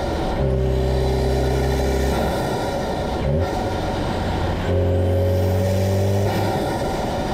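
VW 1.8 TSI (EA888 Gen 3) turbocharged four-cylinder breathing through an APR aftermarket intake, heard from the engine bay during a pull through the gears. The engine note climbs slowly, breaks off a little past two seconds at a gear change with a short rising blip, and picks up again from about five seconds in.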